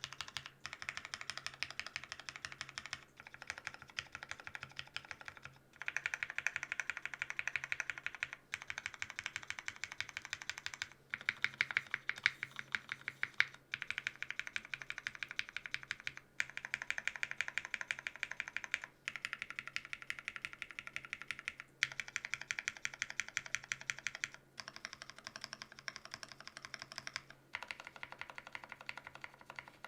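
Typing on a gasket-mounted custom mechanical keyboard with lubed, filmed Cherry MX Black linear switches on an aluminum plate and GMK doubleshot ABS keycaps: rapid keystroke clacks in runs of a few seconds, broken by short pauses.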